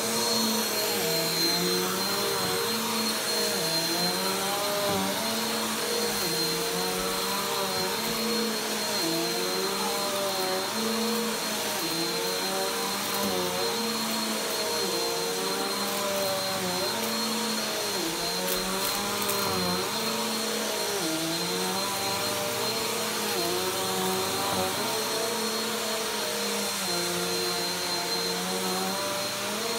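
Upright vacuum cleaner running on carpet, a steady motor whine whose pitch dips and recovers every couple of seconds as it is pushed back and forth.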